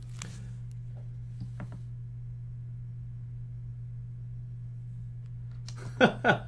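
Steady low electrical hum, with a couple of faint taps from sealed card packs being handled in the first two seconds.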